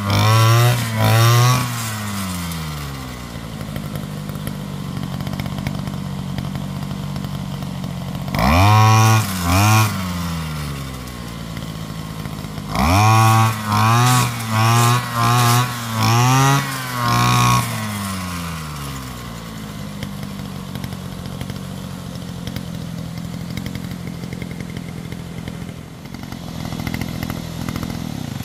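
Small petrol engine of a grass-cutting machine revved in short bursts, each falling back to a steady running note: a few bursts near the start, two about a third of the way in, and a quick run of six about halfway. After that it runs steadily.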